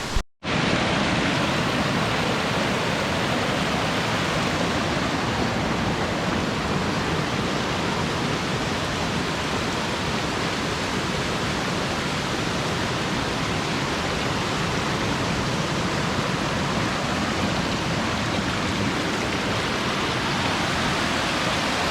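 Waterfall pouring steadily: a loud, even rush of falling water, coming in after a moment of silence at the start.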